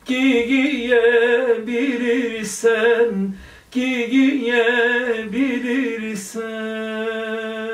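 A man singing a Turkish folk song unaccompanied, in wavering, ornamented phrases. He breaks off briefly about three and a half seconds in, then holds one long steady note from about six and a half seconds.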